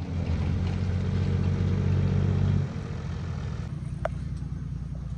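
An engine running steadily, quieter from about two and a half seconds in.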